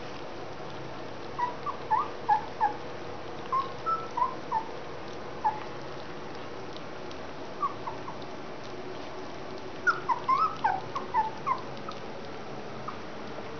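Collie puppies squeaking and whimpering as they jostle at a food dish. The short, high squeaks come in two flurries, the first about a second and a half in and the second near ten seconds.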